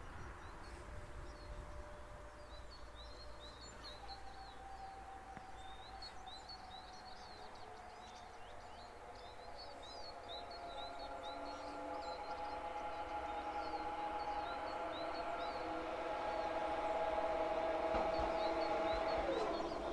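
Small birds chirping, while an approaching electric locomotive's steady whine of several tones grows louder from about four seconds in, one tone dropping in pitch just before the end.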